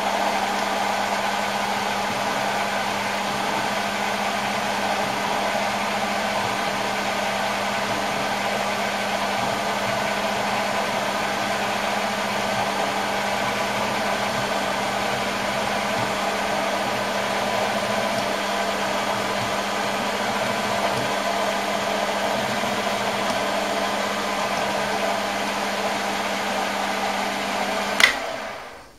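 Optimum D180x300 bench lathe running steadily while milling an aluminium block held on the cross slide: an even motor and spindle hum with a steady low tone. Near the end a sharp click, and the hum dies away within about a second as the machine is stopped.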